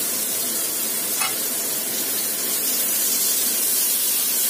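Oil sizzling steadily in a non-stick frying pan as minced ginger, garlic and dried sakura shrimp fry, stirred with a spatula.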